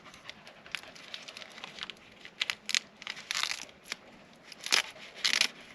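Packaging being pulled off new bike handlebars: irregular crinkling and tearing rustles, with a few louder bursts in the second half.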